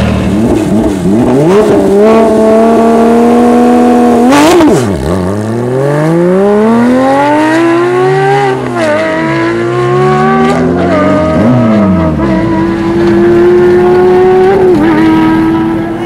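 Porsche 997 GT3 RS's flat-six engine driven hard. It climbs in pitch through the revs and drops back several times as the driver shifts and lifts off, with a sharp crack about four and a half seconds in. Near the end it holds a high, steady note.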